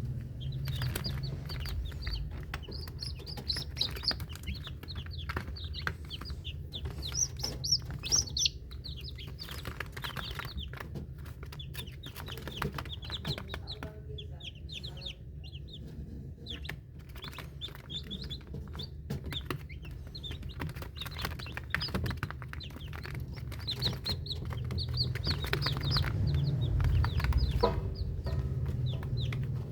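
Many newly hatched chicks peeping continuously in short high chirps, thinning out midway and picking up again near the end, over a steady low hum.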